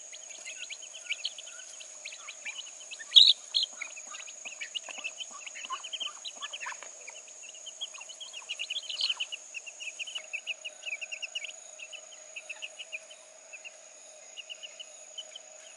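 Chicken chicks peeping: a continual string of short, high cheeps, one louder than the rest about three seconds in, over a steady high insect drone.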